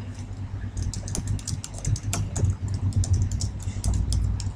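Typing on a computer keyboard, a quick run of keystroke clicks, over a steady low hum.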